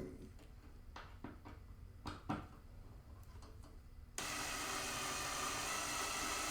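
Light clicks and taps of small parts being handled, then about four seconds in a small power drill starts suddenly and runs steadily, driving in a motherboard mounting screw.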